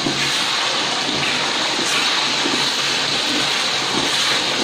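Ground spice paste for beef rendang sizzling steadily in hot oil in a wok as it is stirred. This is the paste being sautéed until its water cooks off and the oil separates.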